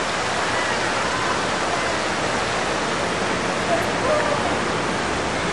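Fountain water rushing and splashing steadily.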